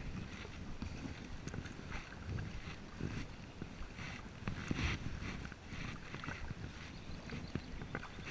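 Kayak paddling: a double-bladed paddle dipping into calm canal water on alternate sides, with splashes and drips about every second or so, over a low rumble of wind on the microphone.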